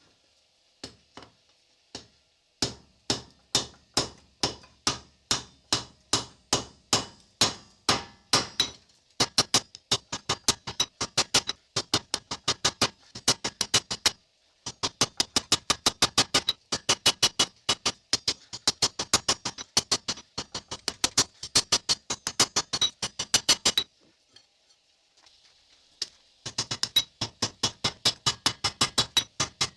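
Hammer blows forging 5160 leaf-spring steel on an anvil, each strike ringing. About two blows a second at first, then quicker runs of strikes, broken by two short pauses.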